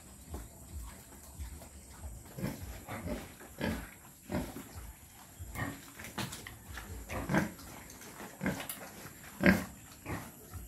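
Pigs grunting: a string of short, separate grunts, about a dozen, starting about two seconds in, with one louder grunt near the end.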